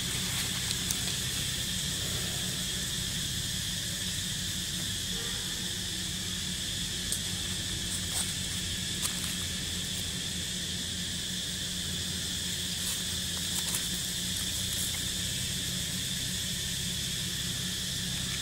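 Steady high-pitched insect chorus droning without a break, over a low rumble, with a few faint clicks.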